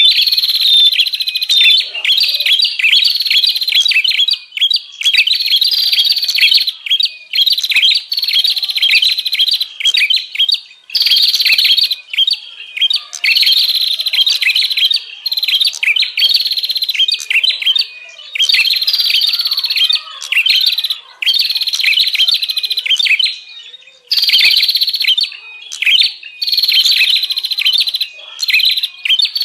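Prenjak songbirds giving fast, busy chattering calls in repeated runs of a few seconds with short breaks between them: the noisy 'ribut' call used as a lure to draw in wild prenjak.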